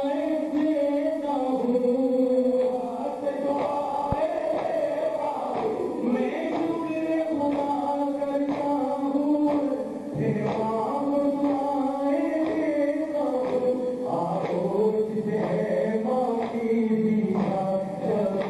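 A Shia noha chanted by a crowd of men in long held lines, with the repeated slaps of hands striking bare chests in matam.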